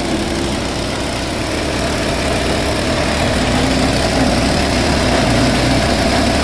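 G-20 chopper-grinder machine running steadily while grinding corn cobs through a 5 mm screen, getting slightly louder about two seconds in.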